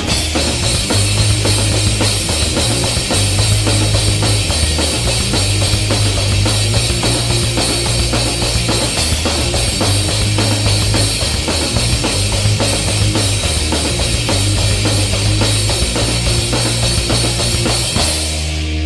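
Punk rock band recording in an instrumental stretch: a fast, busy drum kit with electric guitar and bass, no vocals.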